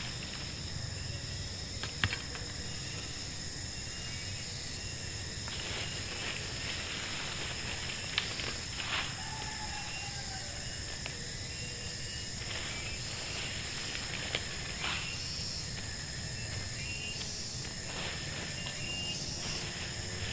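Forest ambience: a steady, high-pitched insect drone with short chirps repeating over it, broken by a few sharp clicks or knocks.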